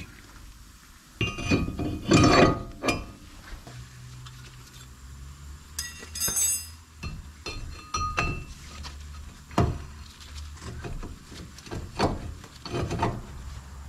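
Metal clanks and clinks as a 2008 GMC Envoy's front brake rotor is slid onto the wheel hub studs and the brake caliper is handled back into place. The loudest knock comes about two seconds in, and around six seconds a clank rings briefly.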